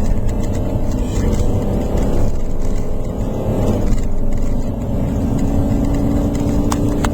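Inside a moving car on an unpaved road: steady engine hum and low tyre and road rumble, with the engine note changing about four seconds in.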